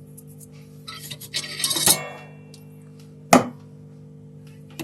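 Small metal tools and parts clinking and rattling on a repair bench for about a second, then one sharp click about three seconds in.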